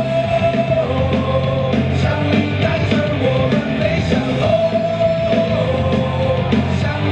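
A baseball cheer song playing loud: rock-style music with a sung melody holding long notes over steady drums and bass.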